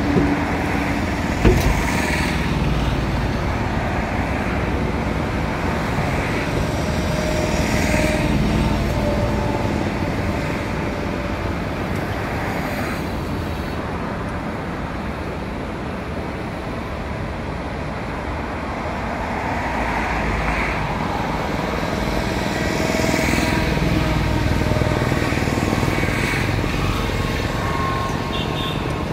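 Road traffic noise, a steady rush that swells and eases as vehicles pass, with a single sharp knock about a second and a half in.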